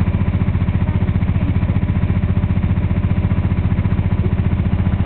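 Engine of a river tour boat running steadily, a fast even low throb.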